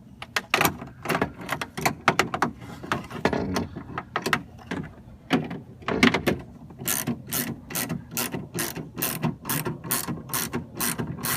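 Ratchet wrench with a 10 mm socket clicking as it turns a screw holding the car's exterior door handle in place. The clicks come quickly and unevenly at first, then settle into an even run of about three a second in the second half as the screw is run down tight.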